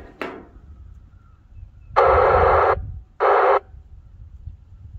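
Two bursts of FM static from the speaker of a Yaesu FT-2980 2-metre radio as its squelch opens on a weak, noisy signal, the first about two seconds in lasting under a second, the second shorter and a moment later.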